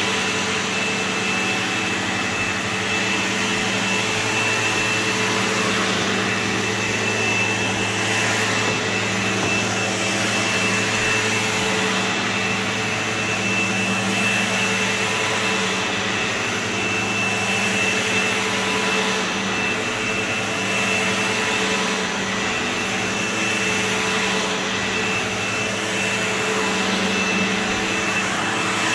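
Sebo X4 upright vacuum cleaner running steadily while being pushed over carpet: a constant motor hum with a steady high whine.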